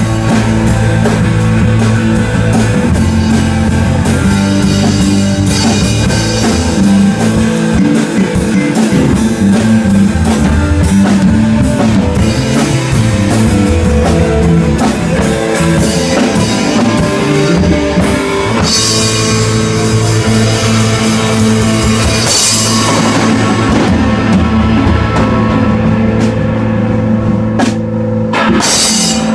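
A live rock band playing loudly in a small room: electric guitars over a Yamaha drum kit, with a loud final hit with cymbals near the end.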